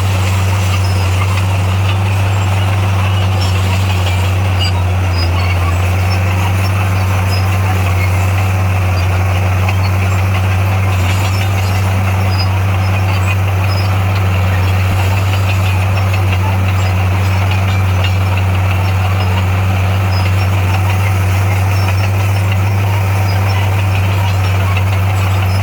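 Heavy diesel earthmoving machinery running steadily, a deep unbroken engine drone.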